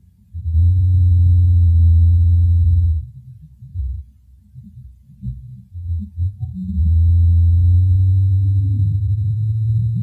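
Low, steady buzzing hum from a flying insect close to the field microphone, heard twice: first for about two and a half seconds, then again from about seven seconds in. The recordist asks whether it is flying insects or a baby Bigfoot crying.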